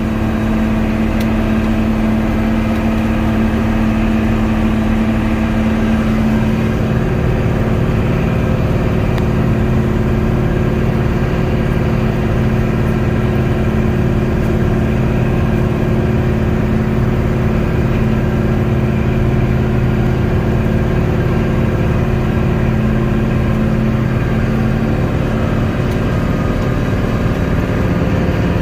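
Combine harvester running steadily while combining canola: a loud, even machine drone with several held tones. About six seconds in the pitch of the drone shifts, the main tone dropping lower.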